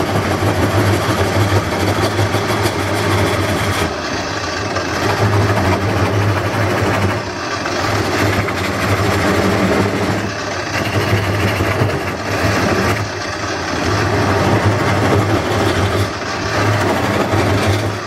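Wood lathe running with a turning tool cutting into the spinning bowl blank as it is hollowed. A steady motor hum sits under the cutting noise, which swells and eases every few seconds as the tool makes its passes.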